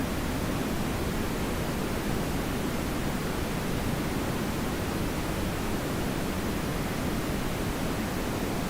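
TV static noise: a steady, unbroken hiss at an even level, fuller and heavier in the low-middle range than at the top.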